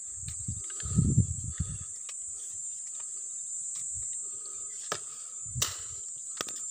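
Steady high-pitched insect drone, with a brief low rumble about a second in and a few faint clicks.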